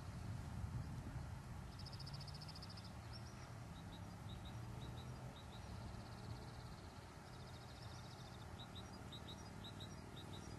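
Open-field ambience: a low rumble of wind on the microphone, with small birds chirping. There are two quick trilled runs and scattered short high chirps, the chirps coming mostly in the second half.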